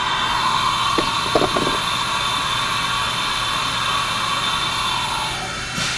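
HAAS vertical mill spindle spinning at high speed, about 15,000 RPM, on the last step of a warm-up program: a steady high whine. Near the end the whine drops slightly in pitch and fades as the spindle winds down.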